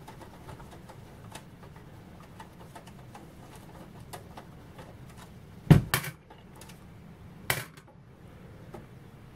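Small plastic and metal clicks and taps as a GeForce GTX 780 graphics card is worked loose from its motherboard slot and case bracket. A loud sharp double click sounds a little past the middle, and another sharp click about two seconds later.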